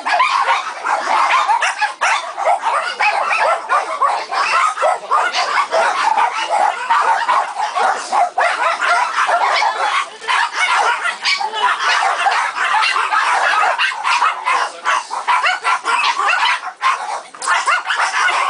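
Many dogs barking and yipping over one another, a continuous din from a large crowd of shelter dogs.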